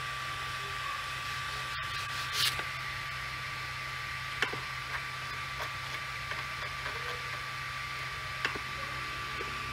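Powered-on Ender 3 V2 3D printer giving a steady hum with a thin high whine, during manual bed leveling with a sheet of paper. The paper rustles briefly about two seconds in, and a few light clicks and taps follow.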